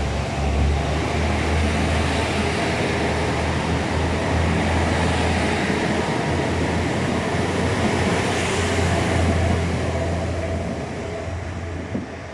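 JR KiHa 110-series diesel multiple unit accelerating hard out of a station, its diesel engines running at full power as the four cars pass close by. The low rumble fades over the last couple of seconds as the train pulls away.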